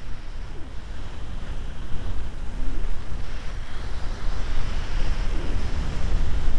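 Wind buffeting the microphone as a skier runs downhill: a steady low rumble. A hiss of skis sliding over snow grows louder from about two seconds in.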